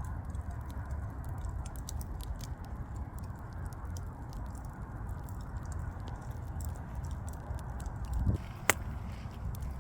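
Wood fire burning, a steady low rumble of the flames with many small sharp crackles and pops. A louder low thump comes about eight seconds in, followed at once by one sharp snap.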